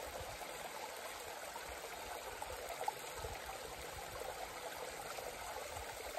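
Small mountain stream trickling and splashing over rock ledges, a steady, even rush of water, with one brief click about three seconds in.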